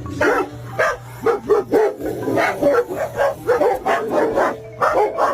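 A dog vocalizing in a rapid run of short yips and whines, about three a second, each one bending up and down in pitch.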